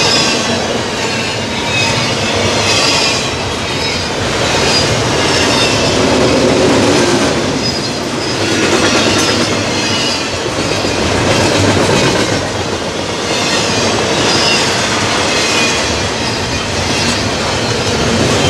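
Double-stack container well cars of an intermodal freight train rolling past: a steady noise of steel wheels on the rails that swells and eases every few seconds, with a faint high wheel squeal.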